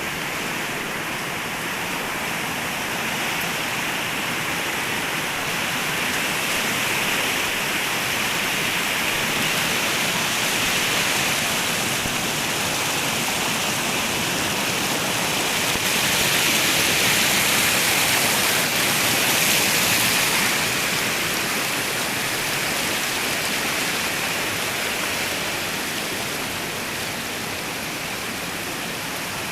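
Flowing water running steadily, an even rushing hiss with no breaks, swelling a little louder past the middle.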